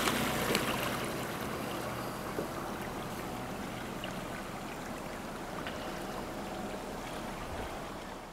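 Water washing and trickling around the wake of a sailboat motoring under quiet electric drive. It eases off over the first couple of seconds, then stays steady.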